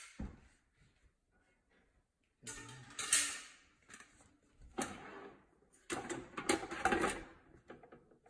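Basket drawer and wire grill rack of a Philips Airfryer XXL being handled: a click at the start, a quiet pause of about two seconds, then a run of clattering handling noise with several sharp knocks.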